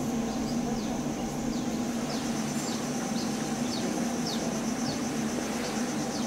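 Birds giving short descending whistled calls, a few each second, over a steady high insect buzz and a steady low hum.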